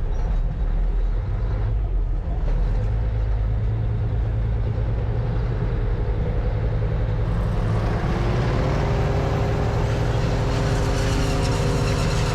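Heavy diesel engine running steadily. About eight seconds in, a whine rises in pitch and then holds as more machinery noise comes in.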